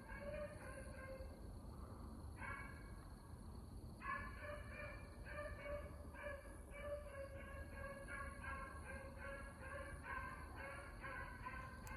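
Beagles baying in the distance while running a rabbit: quick, overlapping chop-mouth barks several times a second. There is a short lull early on, then an unbroken run of barks from about four seconds in.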